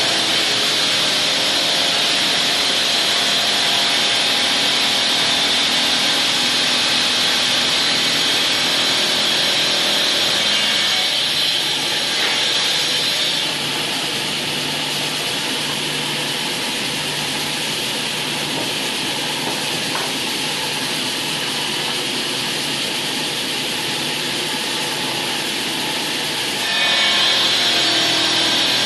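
Power saw with a marble and granite blade cutting stone, a steady high-pitched grinding whine. About halfway through it turns quieter and lower, and near the end it comes back louder and sharper.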